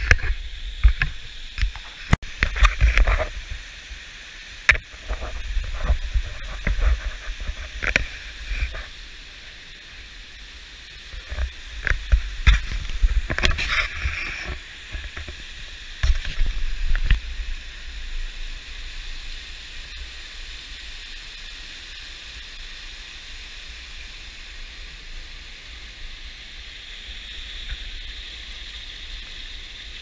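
Waterfall and fast stream water rushing over rocks, a steady hiss. Through roughly the first half, irregular knocks and low rumbles from the microphone being jostled ride over it, then the water alone continues.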